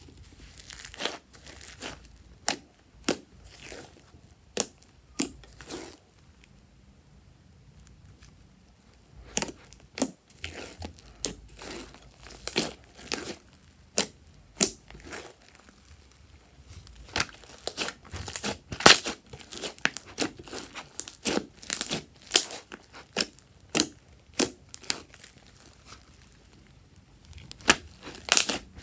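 Slime being squeezed and stretched by hand, giving irregular sticky crackles and pops. The pops come in clusters with a few short pauses and grow busier in the second half.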